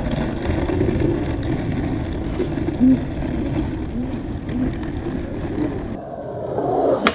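Skateboard wheels rolling over rough asphalt against a steady outdoor rumble. The sound changes abruptly near the end, with a sharp click.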